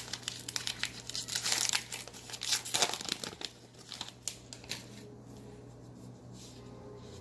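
Trading card pack wrapper being torn open and crinkled, busy for about four and a half seconds, then dying down to a few faint ticks.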